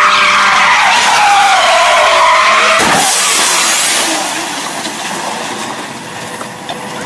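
Car tyres squealing in a skid, the squeal wavering up and down in pitch. About three seconds in it is cut off by a sudden loud burst of noise, and a quieter hiss follows.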